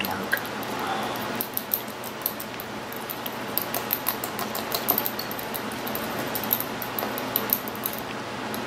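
Light clicks and taps of a small object being handled by hand, dozens of quick irregular ticks over a steady hiss.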